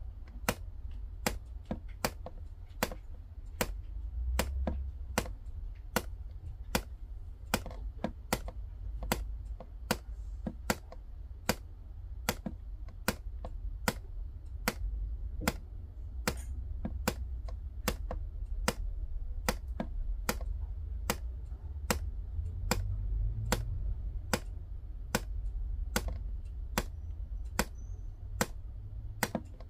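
A cat purring as a low, steady rumble, under sharp regular ticks about three every two seconds.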